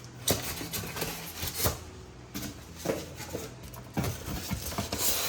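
A box and its packaging being handled while a new rice cooker is unboxed: several scattered knocks with rustling between them.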